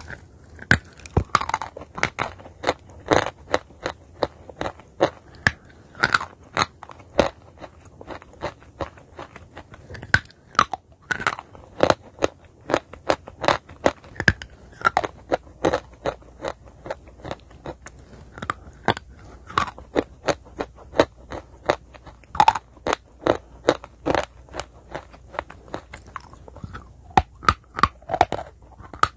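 A person biting and chewing dry chalk, close-miked: rapid, sharp crunches several times a second, in runs broken by short pauses.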